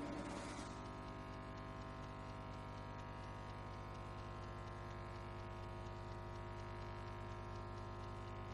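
Low, steady electrical mains hum with many even overtones, unchanging throughout, under quiet room tone.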